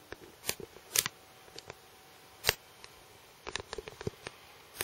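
Irregular sharp clicks and taps: a loud one about half a second in, another at one second, the loudest at two and a half seconds, then a quick run of smaller clicks around three and a half to four seconds in.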